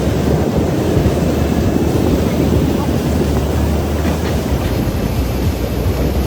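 A heavy machine's engine running steadily, a dense low rumble with a steady low hum underneath.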